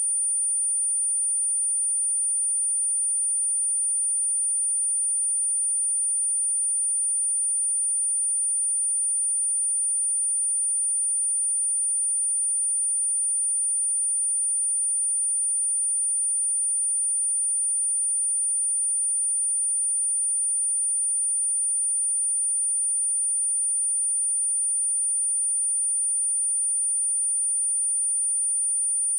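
A pure 9285 Hz sine-wave test tone, one steady high-pitched whistle that holds unchanged in pitch and loudness throughout.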